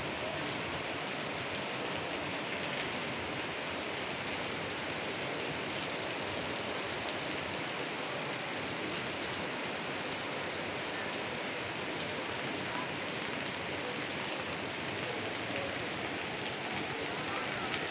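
Steady rushing noise of the flooded Beas River, a fast muddy torrent, mixed with heavy rain.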